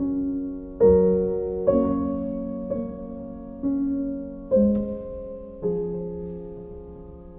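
Slow, gentle solo piano music: a note or chord struck about once a second, each ringing out and fading, the last one dying away near the end.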